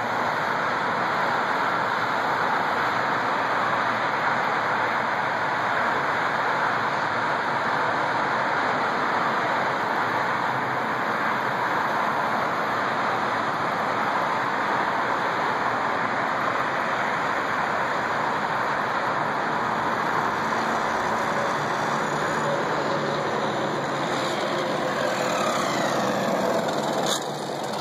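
A steady rushing noise at an even level throughout. Near the end, the whine of a Traxxas Rustler RC car's brushless electric motor slides in pitch as the car comes in.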